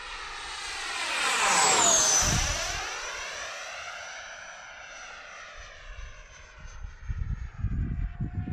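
Electric ducted fan of a 90 mm RC F-18 jet on a 12S battery, whining past in a fast flyby: the sound swells to a peak about two seconds in, its whine drops in pitch as it goes by, and then it fades away.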